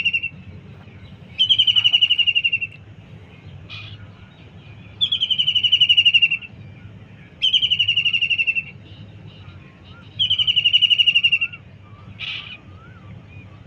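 Kingfisher calling: a loud, rapid trill sliding slightly downward, about a second long, repeated about every two to three seconds. A short, sharp note sounds twice between the trills, and a faint wavering whistle comes in near the end.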